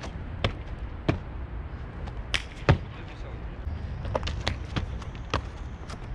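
Shoes landing and slapping on concrete as a freerunner jumps and steps: a series of sharp, irregularly spaced impacts over a low steady rumble.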